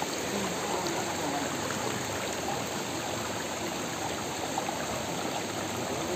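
Shallow rocky stream running steadily over stones, a constant rushing of water.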